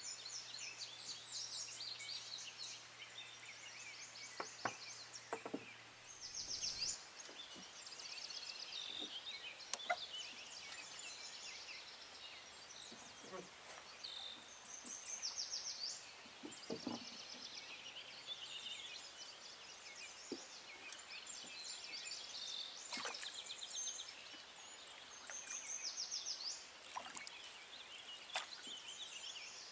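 Many songbirds singing and trilling in the riverside trees. Scattered single wooden knocks come from the oars working in the oarlocks of a small wooden rowing skiff.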